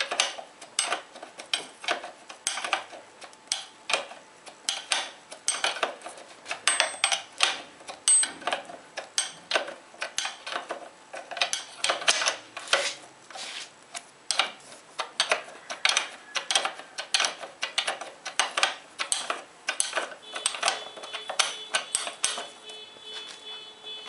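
Steel wrench working a 14 mm bolt loose on a Honda CD 70's front end: a run of sharp metallic clinks and clicks, about two a second.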